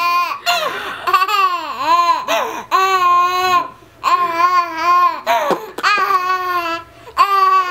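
Baby cooing and squealing happily: a string of high-pitched, drawn-out vocal sounds with short breaks between them.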